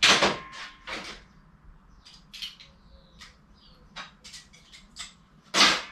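A run of short metallic clicks and clinks from hand tools and engine parts being handled, with two louder clatters, one at the start and one near the end.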